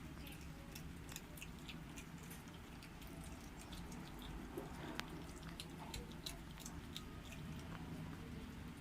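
Kittens eating: faint, irregular wet clicking and smacking of small mouths chewing and lapping, over a low steady hum.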